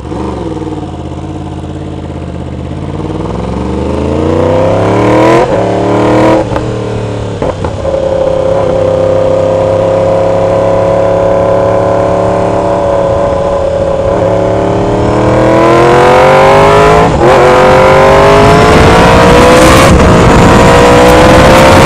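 2016 Yamaha R1's crossplane inline-four through an aftermarket exhaust, accelerating from a stop up through the gears. The engine note climbs and drops at each of several quick upshifts in the first eight seconds, holds steady at a cruise, then climbs again with two more shifts near the end.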